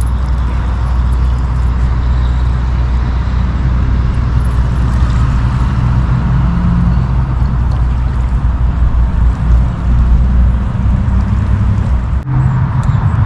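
Steady low rumble of a vehicle's engine and road noise, heard from inside a moving vehicle.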